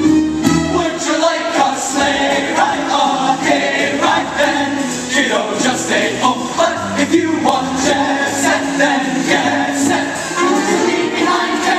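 Mixed-voice show choir singing through stage microphones over backing music with a steady beat.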